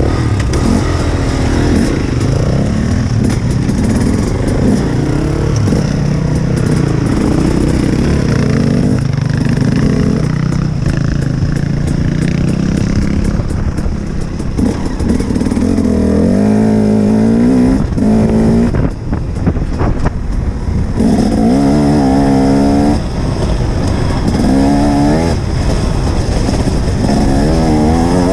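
Enduro motorcycle engine running while being ridden, its pitch repeatedly rising and dropping as it accelerates and shifts, more so in the second half.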